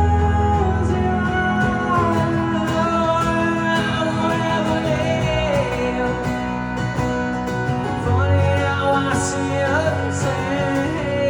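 Live rock band playing an instrumental passage between sung lines: guitars over bass and drums, with a melodic line that bends up and down in pitch.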